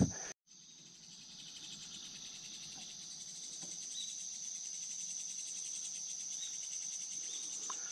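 A steady high-pitched drone of insects singing, fading in after a brief dropout just after the start.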